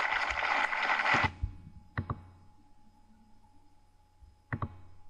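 Audience applause that cuts off abruptly about a second in. A quiet room follows, with a faint steady hum and two sharp double clicks.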